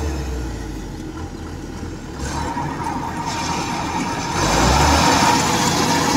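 Kubota DC-105X combine harvester's diesel engine and threshing machinery running steadily while it cuts rice, growing fuller about two seconds in and louder just past four seconds.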